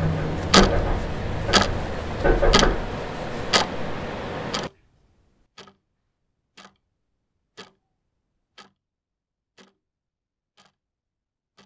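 A wall clock ticking once a second. For the first few seconds the ticks are loud over a dense, steady noise with a low hum. That noise cuts off suddenly about five seconds in, leaving only the clock's fainter ticks in an otherwise silent room.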